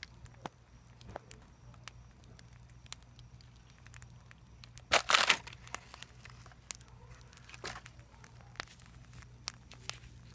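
Fire burned down to glowing embers, crackling with scattered sharp pops, and one louder noisy burst about halfway through.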